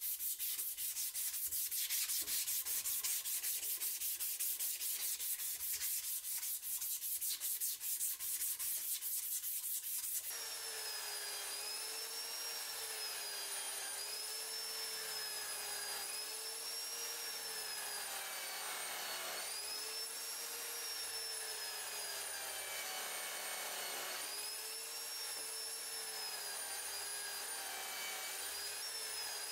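Abrasive strip sanding a wooden knife handle in quick back-and-forth strokes. About ten seconds in, it gives way to a bench-mounted buffing wheel running with a steady whine while a steel cleaver blade is polished against it. The whine wavers in pitch as the blade is pressed on and eased off.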